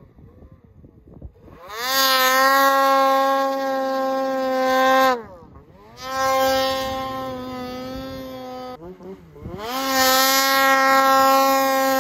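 Ski-Doo Summit 850 two-stroke snowmobile engine opened to full throttle three times, each time revving up quickly and then holding one steady high pitch before backing off. The flat, held pitch is the clutch keeping the engine at its target RPM, with the iBackshift clutch kit adjusted for that.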